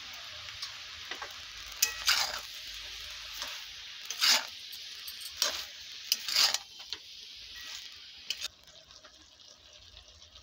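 Shredded cabbage sizzling in hot oil in a kadai, stirred with a spatula that scrapes the pan about five times. The sizzle drops off sharply near the end.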